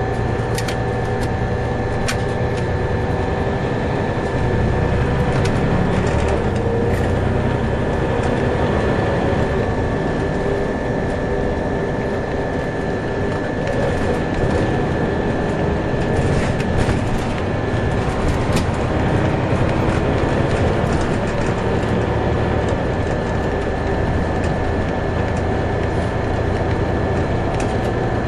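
Scania OmniCity bus in motion, heard from inside the cabin: a steady engine and road rumble with a constant high whine over it, and scattered clicks and rattles from the interior.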